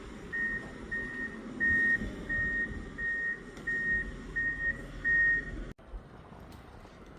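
A vehicle's reversing alarm beeping, a steady high beep repeated about one and a half times a second, over a low rumble; the beeping cuts off abruptly near the end.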